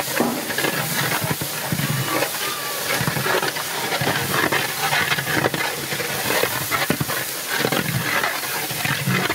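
A steady stream of liquid poured into a large pot of water, splashing continuously onto the surface.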